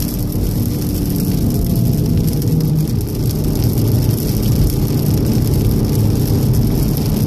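Cabin sound of a 2014 Volkswagen Golf VII R driven fast on a wet road: its turbocharged four-cylinder engine running steadily under a heavy low rumble of tyres and road, with a constant hiss of water spray from the wet surface.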